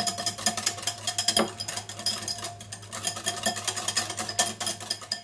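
Wire whisk beating a thick mayonnaise-based sauce in a glass bowl: a fast, irregular run of clicks and scrapes as the wires strike the glass, stopping near the end.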